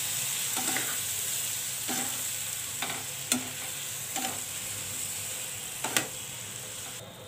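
Ground coriander and cumin soaked in water sizzling in a frying pan of fried vegetables while a spatula stirs, knocking and scraping against the pan about six times. The sizzling drops away just before the end.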